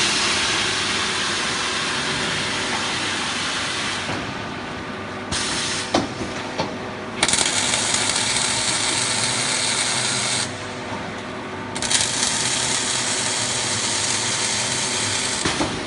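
Automated wheelbarrow welding machine at work: three stretches of loud hiss, each about three to four seconds, over a steady machine hum, with a few short knocks between the first two.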